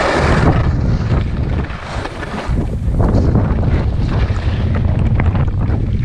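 Wind buffeting the microphone of a skier's camera in a steady low rumble, with the hiss of skis sliding and turning through snow swelling and fading every second or two.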